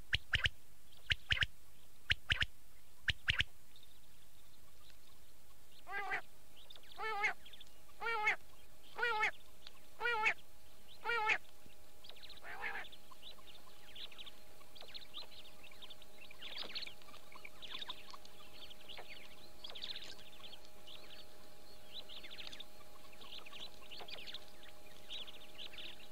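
Quail calling: a few sharp calls in the first few seconds, then a run of six calls about a second apart. Fainter, quicker twittering follows for the rest, over a steady low hum.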